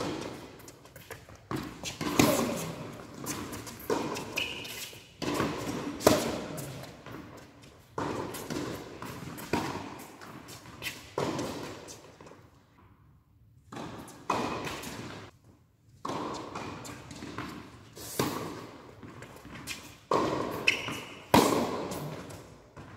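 Tennis rally: racket strikes and ball bounces trading back and forth about every second or two, each hit echoing in a large indoor tennis hall, with a few short squeaks of shoes on the court.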